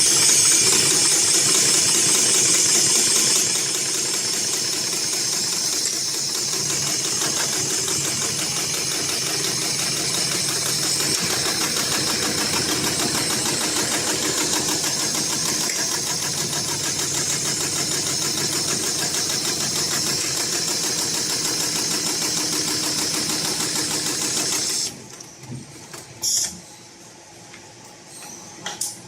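HIGHTEX 733CS extra-heavy-duty walking-foot industrial sewing machine running at speed with a fast, even stitching rhythm, loudest for the first few seconds. It stops suddenly about 25 seconds in, followed by a few short clicks and knocks.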